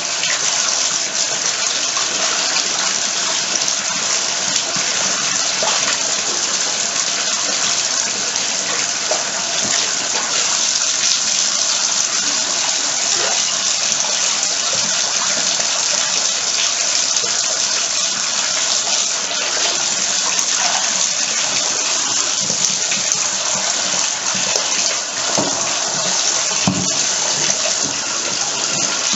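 Bathtub faucet running steadily, water gushing and splashing into the tub.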